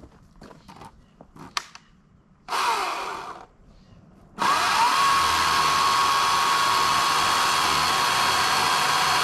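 EGO CS2005 56-volt battery chainsaw: a short squeeze of the trigger with the motor winding down, then, a second later, the electric motor spins up and holds a steady high whine at full speed. A few light knocks come before it in the first two seconds.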